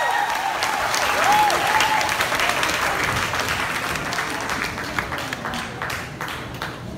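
Audience applauding, many hands clapping at once, the clapping thinning and fading away over the last few seconds.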